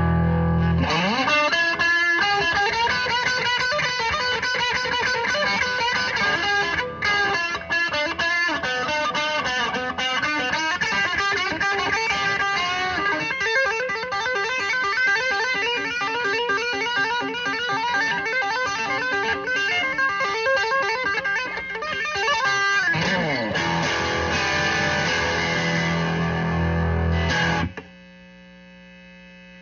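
1965 Gibson SG Jr. electric guitar, with its single P-90 pickup, played through a 1975 Marshall JMP valve combo amp: chords and single-note lines with a few slides up and down the neck. The playing stops about two seconds before the end, leaving the amp's steady hum and buzz.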